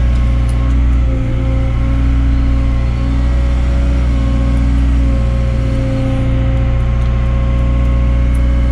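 Cat hydraulic excavator's diesel engine running under load, heard from inside the cab while the machine digs and swings a bucket load: a steady, loud low hum with a faint higher steady tone above it.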